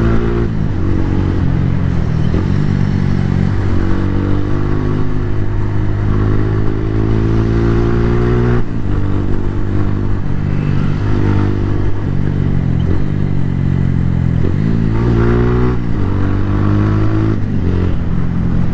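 Suzuki Gixxer 150 Fi's single-cylinder engine running under way. Its note rises and falls with throttle and gear changes, with one clear rise in pitch near the end.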